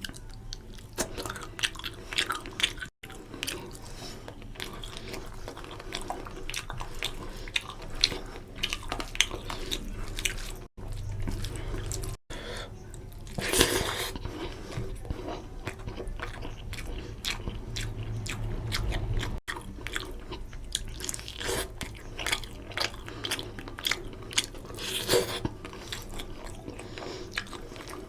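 Close-up sounds of a person chewing and smacking mouthfuls of rohu fish curry and rice, with many wet mouth clicks. Louder bites stand out about halfway through and near the end, and the sound cuts out for a split second a few times.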